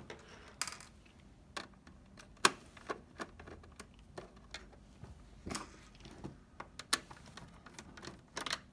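Torx screwdriver backing out the rear case screws of a PS4 console: scattered light clicks and taps of the driver tip, screws and plastic case, the sharpest one about two and a half seconds in.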